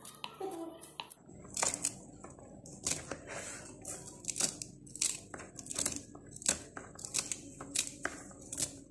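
A small knife slicing through bunches of fresh coriander stems held in the hand, a crisp snip repeating about twice a second.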